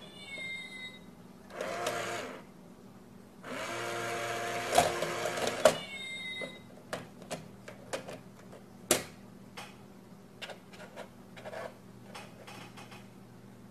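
Small motorized toy coin bank whirring as its lid mechanism works, once briefly and then for about two seconds, with high chirping electronic tones at the start and again just after the longer whirr. A run of light clicks and taps follows as a cat paws at the box.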